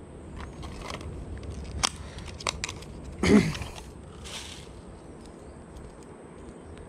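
Clear plastic lure packaging handled and opened by hand: scattered clicks and crackles of stiff plastic as the box is opened and the fishing lure taken out. A brief voice sound a little over three seconds in.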